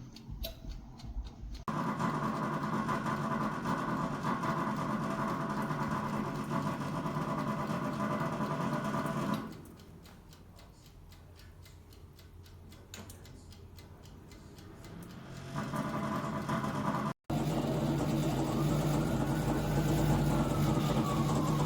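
Air fry toaster oven's convection fan motor running with a steady hum; it drops away about nine seconds in and comes back a few seconds later. Near the end a tone rises and then falls over the hum.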